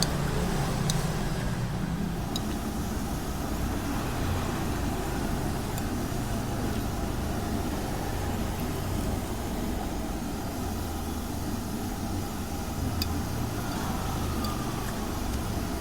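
Steady rumble of road traffic from a main road, with a few faint clicks.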